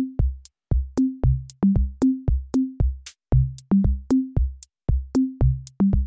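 Background music: an electronic beat of short, clipped low notes, each with a click on top, in a quick, even rhythm.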